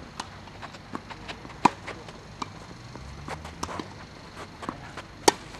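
Tennis ball struck back and forth in a rally: sharp pops of the racket on the ball, the two loudest about a second and a half in and near the end, with fainter knocks of bounces and distant strokes between.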